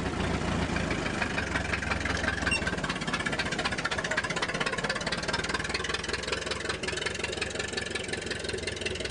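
The 1909 EMF's 30-horsepower gasoline engine running steadily, a fast even chugging of firing pulses.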